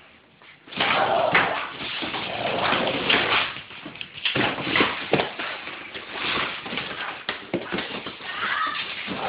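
A pit bull attacking a cardboard box: dog noises mixed with the box being knocked and scraped about the floor in a jumble of thumps. It starts a little under a second in.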